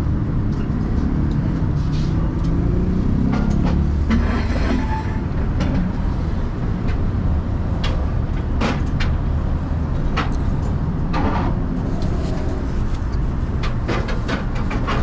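Steady low rumble of street traffic, with light clicks and taps scattered through it.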